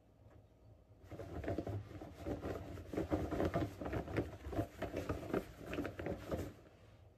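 Raw potato strips shaken in a sealed silicone storage bag with cornstarch to coat them: a rapid, uneven rattle of soft knocks and rustling that starts about a second in and stops shortly before the end.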